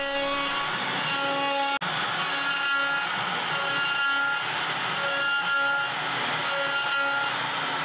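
CNC router spindle whining as a small Jenny bit carves an Osage orange cylinder turning on a rotary axis, with a brief break about two seconds in.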